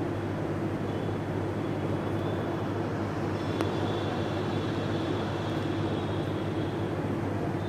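Steady low hum and hiss of background noise, with one faint click about three and a half seconds in.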